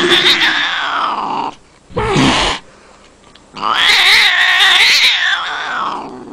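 A Scottish Fold cat yowling in threat: a long drawn-out yowl that fades about a second and a half in, a short harsh burst about two seconds in, then a second long yowl with a wavering pitch that tails off near the end.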